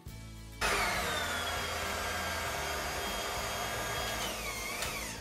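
Electric hand mixer switched on about half a second in, its beaters whirring through cake batter as flour is mixed in, with a steady high whine. Near the end the pitch dips and recovers, then it starts to wind down as it is switched off.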